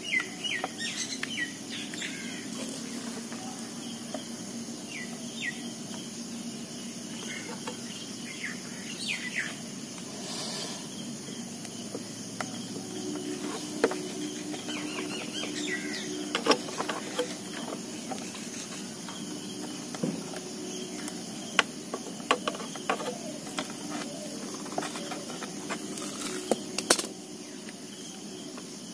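Birds chirping in the background, with scattered clicks and taps as hands fasten small strobe lights and their nuts onto a scooter's plastic rear panel; the sharpest click comes near the end. A faint low steady hum runs underneath.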